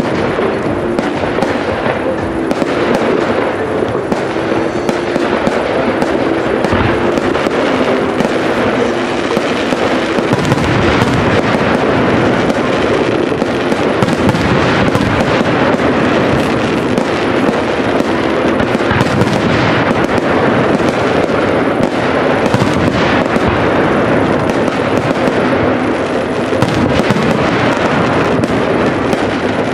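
Aerial firework shells bursting in quick, unbroken succession, bang upon bang.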